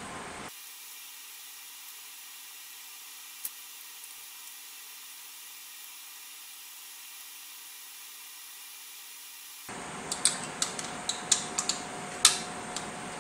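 A steady, thin hiss for most of the stretch, with a single click about three and a half seconds in; then, near the end, a quick run of sharp clicks and taps as small plastic and metal parts of a Hangkai 3.6 hp outboard motor are handled and fitted by hand.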